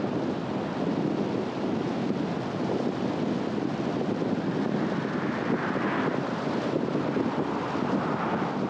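Car driving on a road: steady tyre and road rumble with wind noise. The hiss swells briefly about five to six seconds in.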